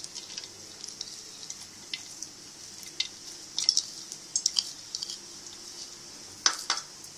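A few sharp clinks and knocks of white ceramic bowls as sliced onions are tipped from one bowl into another and handled, over a steady high hiss; the loudest knock comes near the end.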